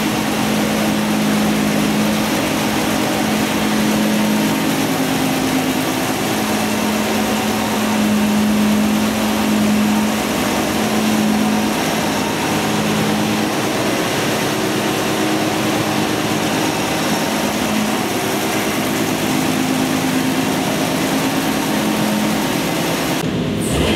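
Supercharged 4.6-litre Jeep stroker inline-six engine running at a steady speed on an engine dyno, with a strong steady tone over the engine noise. The sound drops out briefly just before the end.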